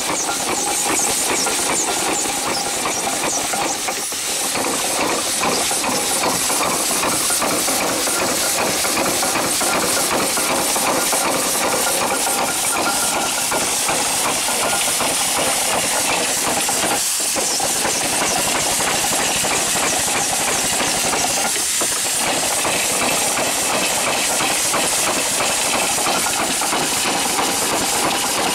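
Small steam engine running on low steam pressure, hissing loudly with a fast, even exhaust beat. Steam leaks from its worn seals all the while.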